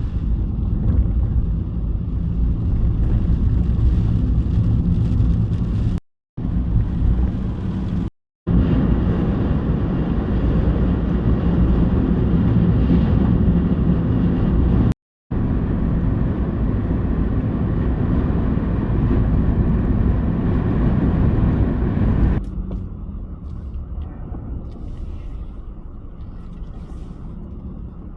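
Steady low rumble of a small car's engine and road noise heard from inside the cabin while driving. It is broken by three abrupt edit cuts, and about three-quarters of the way through it drops to a quieter, duller rumble.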